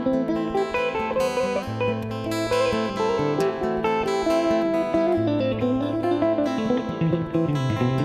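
Instrumental guitar music: a guitar plays a single melody line with sliding, wavering notes over held low bass notes.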